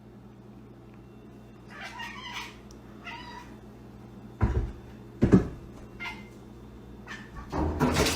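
A domestic cat meowing several times, with two dull thuds about a second apart midway through.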